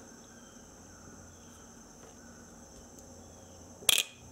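Automatic transmission clutch pressure control solenoid valve clicking once, short and sharp, near the end as about 12 volts from a battery pack is put across it: the valve shifting, a sign that it works. A faint steady high-pitched hiss runs underneath.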